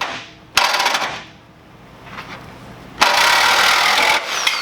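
A power tool cutting through the steel sheet metal of a BMW E30's front end in two loud bursts: a short one about half a second in and a longer one of about a second from three seconds in.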